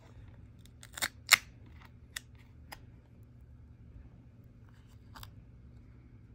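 Cardboard advent calendar door being pushed in and popped open along its perforations: two sharp cardboard snaps about a second in, the second the loudest, then a few lighter crackles and clicks. Another crisp snap a little after five seconds as a cardboard flap is pulled open.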